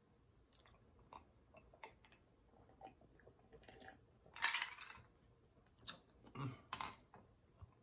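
Light clatter of cutlery and dishes being handled at the table: scattered faint clicks, with a brief louder rustling noise about halfway through and a few short knocks near the end.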